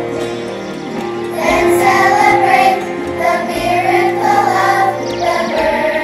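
Children's choir singing a song with musical accompaniment; the singing grows louder about one and a half seconds in.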